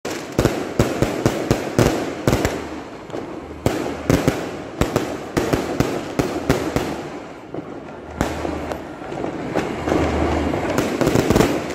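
Aerial fireworks going off overhead: a rapid run of sharp bangs and crackles, thickest in the first couple of seconds, thinning out in the middle, and picking up again near the end.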